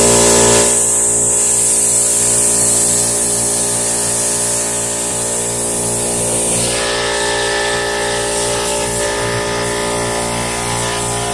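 CNC plasma cutter's torch cutting sheet steel with a loud, steady hiss; the arc stops about six and a half seconds in, when the torch moves between cuts. A steady hum of several held tones runs underneath.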